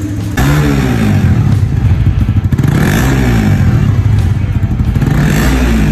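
Suzuki GSX-R150's single-cylinder four-stroke engine being revved in short throttle blips over a steady idle: the note climbs and falls back about half a second in, again around the middle, and once more near the end.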